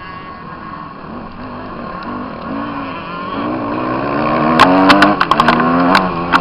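Motocross bike engine revving up and easing off through the gears, its pitch rising and falling and the sound getting louder in the second half. From about two-thirds of the way in, a quick run of sharp cracks sounds over the engine.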